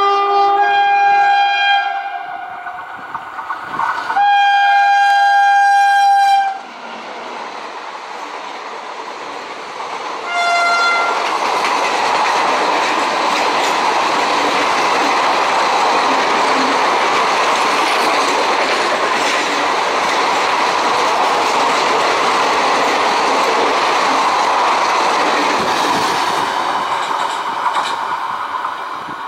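A WAM4 AC electric locomotive's air horn sounds two long blasts and then a brief toot. The train's coaches then pass at speed with a steady rush and clatter of wheels on rail, fading near the end.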